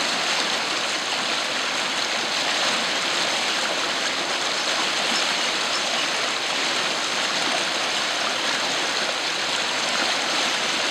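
Fast-flowing muddy floodwater rushing and churning in standing waves: a steady rush of water.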